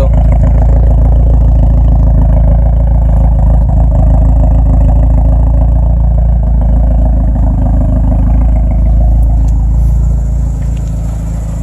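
Turbocharged Eagle Talon four-cylinder engine idling steadily and loudly, easing off a little in the last second or two.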